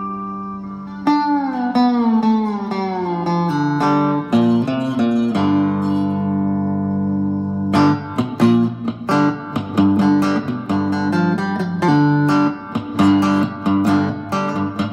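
Amplified cigar box guitar played with a slide: about a second in, a held note glides down in pitch over a couple of seconds, then separate notes ring out. From about eight seconds on it turns to a faster, rhythmic picked riff.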